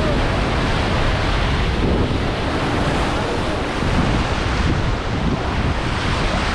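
Ocean surf breaking and washing up a sandy beach in a steady rush, with wind buffeting the phone's microphone.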